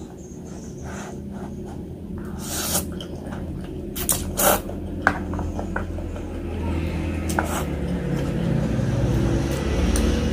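Close-miked eating of spicy noodles with meatballs: chewing and mouth noises, with a few sharp clicks and smacks. The loudest come a little before halfway. A steady low hum runs underneath.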